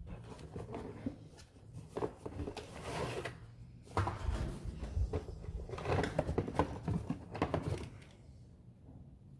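Cardboard box and packaging being handled: irregular rustling, scraping and light knocks as accessories are taken out, busiest in the middle.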